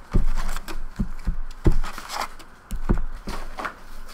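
Hockey card packs being taken out of a box and set down in stacks on a table: a run of irregular light knocks and taps, about eight, with handling rustle between them.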